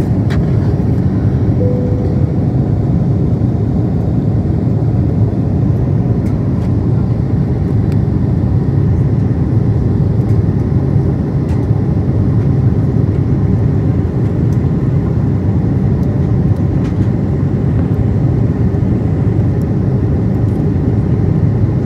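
Airbus A330-200 cabin noise heard from a window seat by the wing during the climb: a steady, deep roar of jet engines and airflow.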